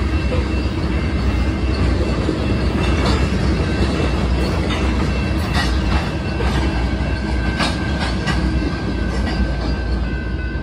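Freight train of covered hopper cars rolling past, a steady low rumble of steel wheels on rail with irregular clacks. A thin, steady high tone comes up in the second half.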